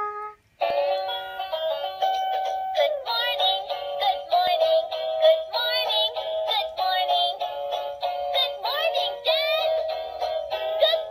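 A children's song, sung over backing music, played from a Shimajiro Hatena-kun talking toy pen. It starts about half a second in, after a short pause.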